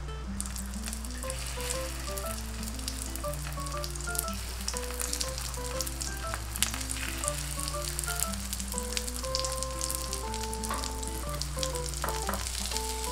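Egg-battered oysters frying in hot oil in a pan: a steady sizzle with spitting crackles that starts about half a second in as they go into the oil. Background music with a simple melody plays underneath.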